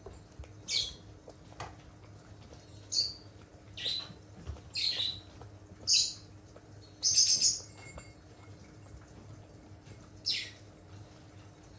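Senior dachshund eating soft food from a bowl: short, wet licking and smacking mouth sounds, spaced out, with a quick cluster a little past the middle and a last one near the end.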